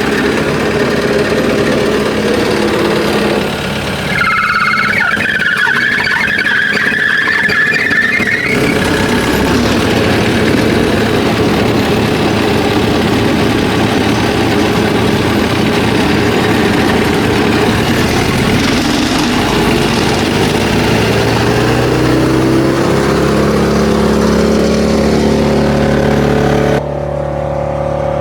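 2020 Vermeer BC1000 wood chipper running on its 2.9-litre Deutz diesel. A high whine rises over it for a few seconds about four seconds in, and in the latter half the engine's pitch climbs in steps as it speeds up. Near the end the higher noise cuts off suddenly, leaving a steady lower hum.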